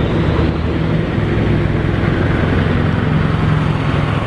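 A motor running steadily: a low hum under a loud, even hiss, with no change in pitch.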